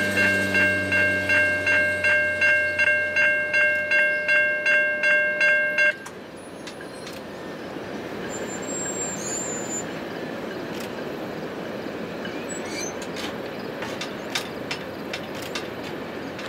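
Railroad crossing warning bell ringing at about two and a half strokes a second over the rumble of the last tank cars rolling past, then cutting off suddenly about six seconds in as the train clears; after that only the fainter rumble of the receding train.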